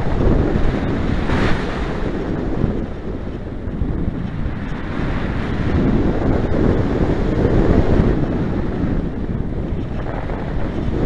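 Rushing airflow buffeting the microphone of a camera mounted on a hang glider in flight: a loud, heavy low rumble that swells and eases irregularly, with no engine or voice.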